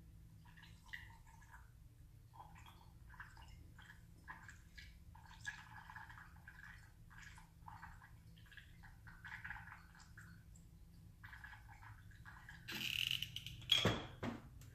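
Gasoline being poured from a gas can through a funnel into the inner can of a Kingston vacuum fuel tank, trickling and gurgling faintly in uneven spurts. Near the end, a louder scraping rustle and a single sharp knock as the gas can is set down on the bench.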